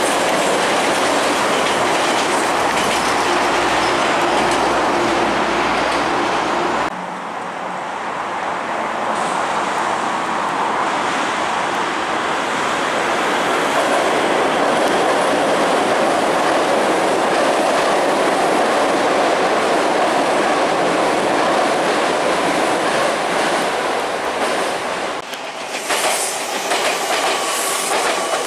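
Meitetsu electric trains passing at close range: a loud, steady rumble of steel wheels running on the rails. The sound changes abruptly twice as one passing train gives way to another.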